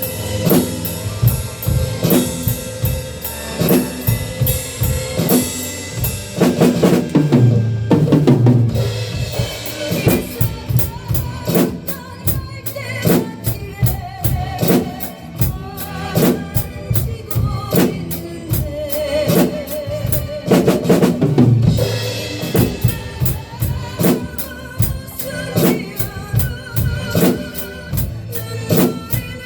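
Drum kit playing a steady beat on bass drum and snare along with the song's backing track during an instrumental break, with drum fills about seven seconds in and again about twenty seconds in.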